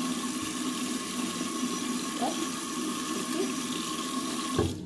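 Bathroom sink tap running steadily, its stream splashing into the washbasin while a shoe is rinsed under it. The flow cuts off suddenly near the end, with a low thump.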